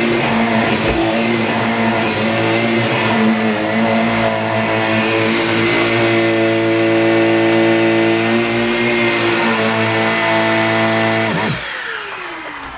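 Upright vacuum cleaner running steadily at full power, then switched off near the end, its motor pitch falling as it winds down.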